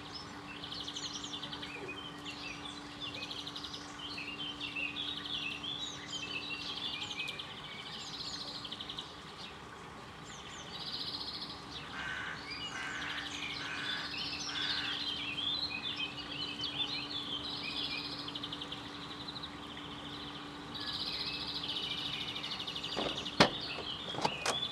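Songbirds singing: overlapping chirps and fast trilled phrases, over a faint steady low hum, with a sharp click near the end.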